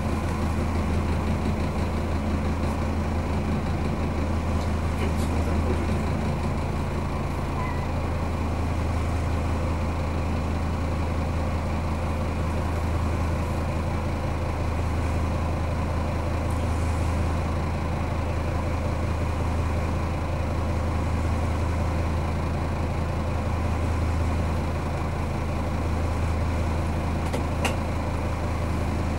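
Diesel railcar engine idling with a steady low hum while the train stands still, heard from the driver's cab. A few faint clicks come through over the hum.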